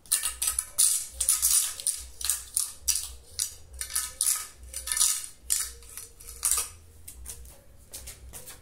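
Steel mason's trowel scraping over a freshly laid cement and mortar floor in quick repeated strokes, about two a second, smoothing it to a burnished-cement finish. The strokes grow faint in the last couple of seconds.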